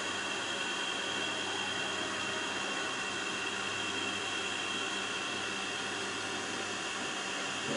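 Pin-on-disc tribometer running: a steady whir and hiss of the motor-driven test disc spinning, with a high steady whine over a low hum. A brief click near the end.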